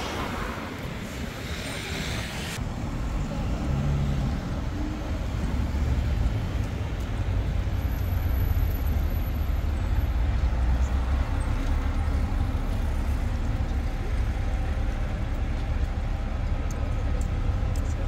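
City street traffic: a steady low rumble of passing road vehicles that grows louder a few seconds in.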